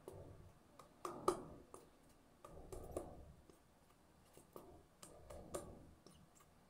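Faint handling sounds from putting on face cream: hands rubbing over the face and a cream container being handled, with a few soft clicks and rustles about one, three and five seconds in.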